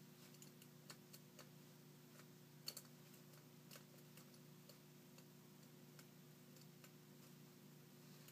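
Faint, irregular small clicks of metal lock picks working inside a Bilock lock, the sharpest a little under three seconds in, over a steady low hum.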